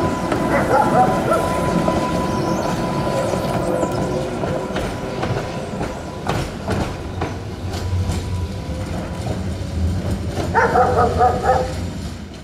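Tatra T3A tram running away over heavily worn track, its wheels giving a thin, steady squeal and clicking over the rail joints. Near the end a dog barks several times in quick succession.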